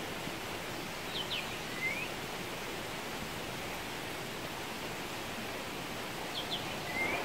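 Steady rain falling on a garden. A bird sings the same short phrase twice, two quick high notes and then a rising note, about five seconds apart.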